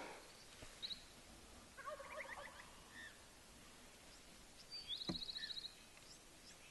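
A Gould's wild turkey gobbler gobbles once, a short rattling call about two seconds in, with faint high chirps around it. A louder, high rapid trill sounds near the five-second mark.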